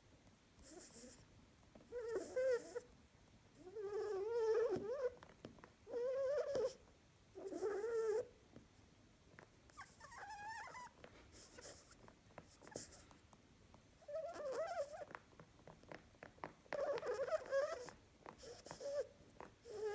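Harlequin rabbit snoring and vocalizing in her sleep: short, wavering pitched sounds with a breathy hiss, repeating about every two seconds.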